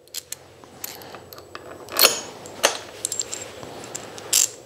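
Small metal clicks and clinks of mounting bolts and washers being handled in the fingers, with a few sharper clinks, the loudest about two seconds in and another near the end.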